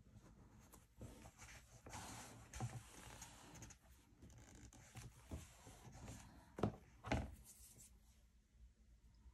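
Hands rubbing and pressing a freshly glued picture flat onto a paper journal page: a faint rustle of paper and skin with scattered light ticks. About two-thirds of the way through come two soft knocks, half a second apart.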